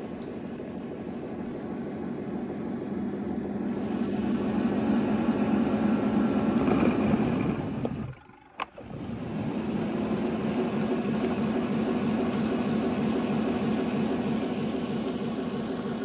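Narwal Freo robot vacuum's base station running with the robot docked, working on its mops: a steady mechanical whir and hum that grows louder over the first few seconds. It breaks off for a moment about eight seconds in, with a single click, then carries on steadily.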